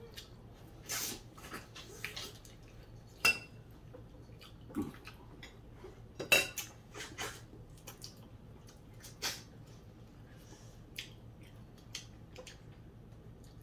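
Light, irregular clinks and taps of cutlery and food on plates as people eat at a table, the sharpest clicks about three and six seconds in.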